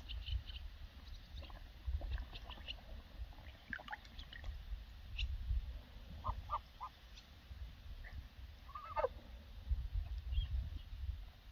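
Young Embden geese, about nine weeks old, giving a few soft calls: three short calls just past the middle and a longer call falling in pitch a couple of seconds later. Scattered small clicks and a low rumble sit underneath.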